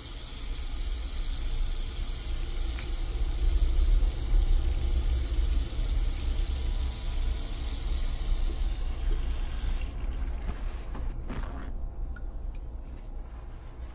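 A tap running into a sink as hands are rinsed under the stream, a steady splashing hiss with a low rumble under it. About ten seconds in the water stops, leaving faint rustling and clicks of paper towel being handled.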